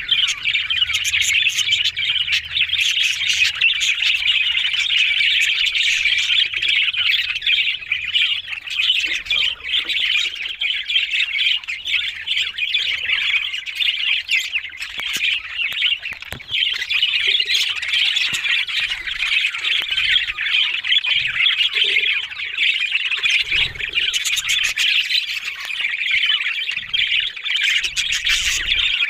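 Budgerigars chattering without a break, many chirps and squawks overlapping.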